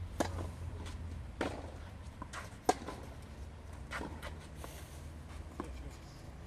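Tennis ball struck back and forth by racquets in a rally on a clay court, starting with a serve: five hits about a second and a half apart, alternately louder and fainter, with footsteps on the clay in between.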